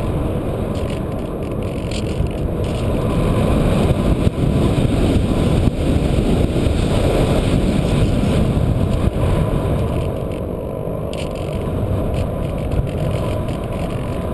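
Rushing airflow over a ParkZone Radian RC glider's onboard camera in flight, a loud steady rush that swells in the middle and eases near the end.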